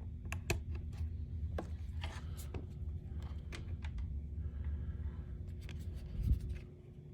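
Handling noise from a loose power cord and plug being fiddled with: scattered small clicks, taps and rubbing over a low rumble, with a thump about six seconds in.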